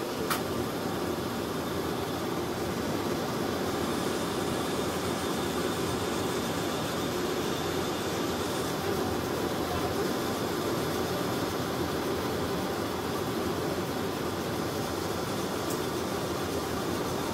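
Epilog laser engraver running while raster-engraving plywood: a steady whir and hiss from its fans and the moving head, with a brief click just after the start.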